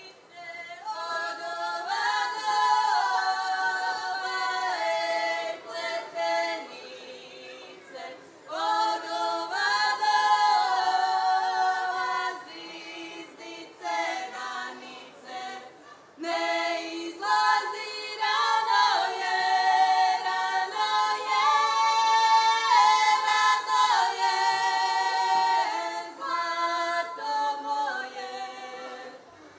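Three women singing a Croatian folk song a cappella, with no instruments, in long sung phrases broken by two short pauses for breath.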